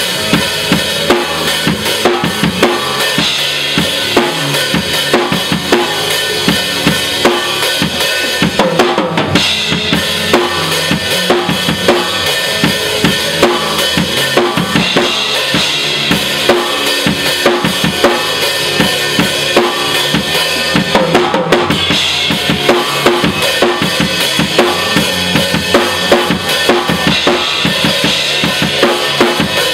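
Live band playing a song at rehearsal, the drum kit out front with a steady kick and snare beat over sustained pitched instruments.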